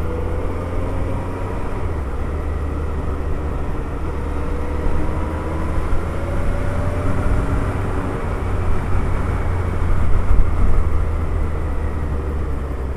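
Suzuki Hayabusa's inline-four engine running on a light throttle, its faint hum rising slowly in pitch as the bike gathers speed, over a steady low wind rumble on the microphone.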